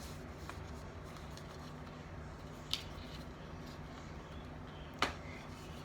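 Steady low room hum with two small sharp clicks, one about three seconds in and one near the end, from cosmetic packaging (a highlighter and blush) being handled and opened.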